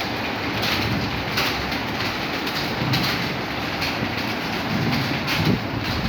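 Many computer keyboards being typed on at once by a roomful of students, a dense continuous clatter of keystrokes.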